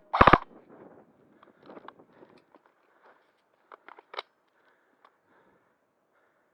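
Airsoft gun firing a short rapid burst, a quick string of sharp clicks right at the start. Faint scattered clicks and snaps follow, with a few sharper ones about four seconds in.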